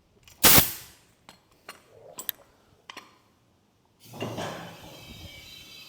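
Short, sharp hiss of compressed air as an air line's quick-connect coupler is snapped onto a pneumatic motorcycle lift's foot pedal, followed by several light metallic clicks. About four seconds in, a different, steadier hissing noise with faint tones begins.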